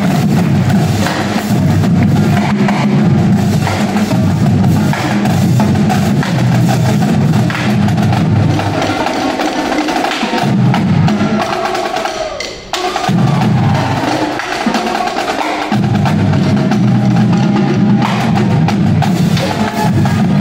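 Marching drumline playing together: snare drums, multi-tenors and marching bass drums in a dense, driving groove. Past the middle the bass drums drop out for several seconds, with a brief near-break, then the full battery comes back in.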